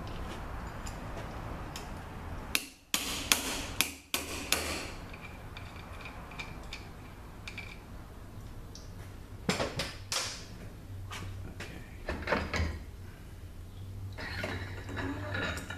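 Slide hammer knocking to pull the front oil pump out of an RE7R01A 7-speed automatic transmission case: about six sharp metallic knocks in two seconds, then a few more spaced knocks. Near the end, a rattling metal clatter as the loosened pump is worked free.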